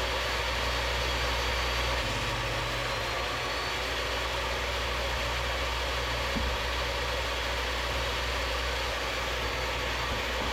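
Table saw running steadily with its blade tilted about 10 degrees, ripping a bevel cut along a thick piece of mahogany.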